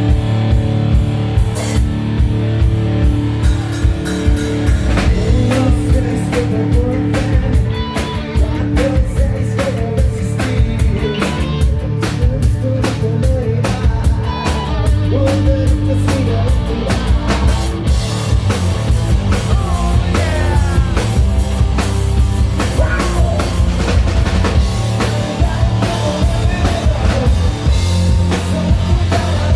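A melodic hard rock band playing live: a drum kit keeps up a driving beat under electric guitars, with wavering, sliding melody lines over the top.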